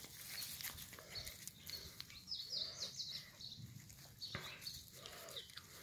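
A Yorkie/Shorkie puppy being rubbed in the grass, with soft rustling of fur and grass and two short, faint puppy whines, one about midway and one near the end. A quick run of high chirps comes a little after two seconds in.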